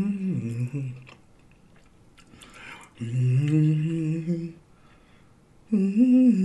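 A man humming with closed lips in three short phrases, with a brief breathy noise between the first two.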